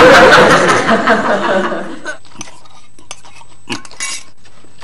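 Studio audience laughter dying away over the first two seconds, then quieter scattered clinks of a fork on a bowl and eating noises as a bowl of instant noodles is eaten quickly.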